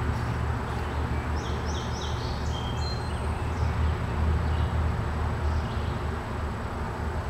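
Outdoor ambience: a steady low rumble, with a short run of small bird chirps between about one and three seconds in.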